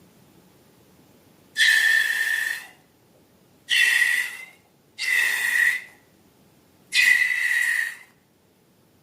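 Air squealing out of a balloon's stretched neck in four short bursts of about a second each, each one a steady high whistle with hiss that starts suddenly and fades.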